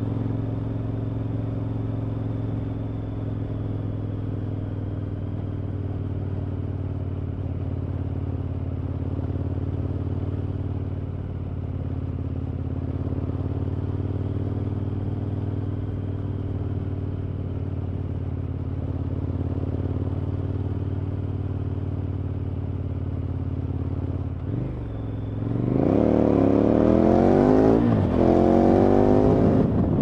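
KTM 1190 Adventure's V-twin engine through an Akrapovic exhaust, running at steady cruising revs. About 25 seconds in the throttle opens and the revs climb, louder, a gear change, then climb again.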